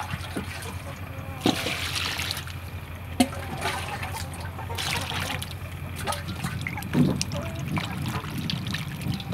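Water poured and splashing into a stainless steel bowl of meatballs, then hands swishing and rubbing the balls in the water, with a few sharp knocks against the bowl.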